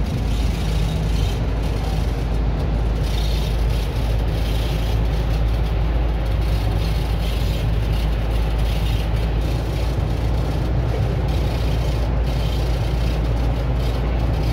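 Steady low rumble of a vehicle's engine and tyres heard from inside the cab while driving at highway speed, with a hiss of road noise above it.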